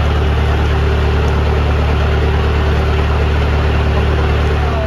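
Narrowboat's diesel engine running steadily, a low even drone with a steady hum above it, under a loud rushing hiss.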